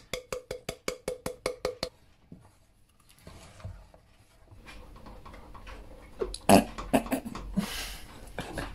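Wet brownie batter being beaten by hand in a bowl: a quick run of rhythmic slaps, about six a second, for the first two seconds, then quieter stirring with a couple of knocks of the utensil against the bowl near the end.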